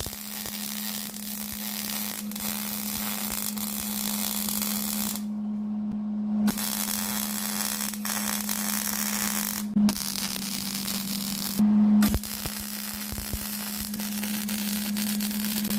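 Arc welding plates onto pipe: the arc's steady crackling hiss with a constant hum beneath. The hiss stops for over a second about five seconds in, and briefly again near ten and twelve seconds, as the bead is broken off and restarted.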